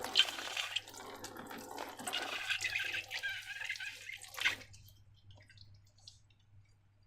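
Slime being worked by hand: wet, sticky liquid sounds with many small crackles and drips. They stop about four and a half seconds in.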